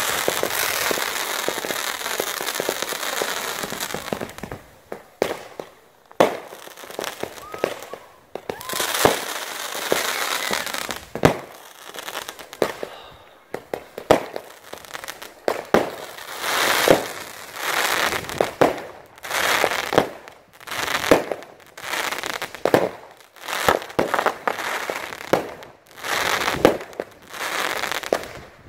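Fireworks going off: a dense, continuous crackle for about the first four seconds, then a long run of separate shots and crackling bursts, roughly one a second.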